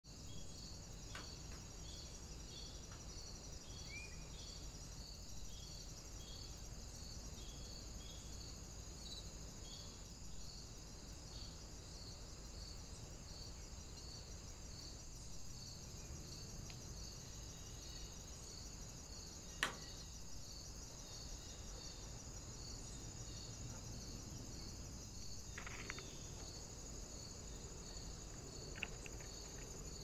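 Crickets chirping steadily in a continuous high buzz, with regular chirps about twice a second, over a low steady rumble. A single sharp click cuts in about two-thirds of the way through.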